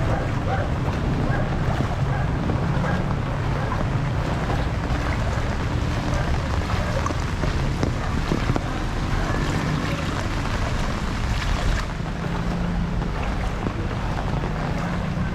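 Steady rush of heavy typhoon rain and wind, with wind rumbling on the microphone.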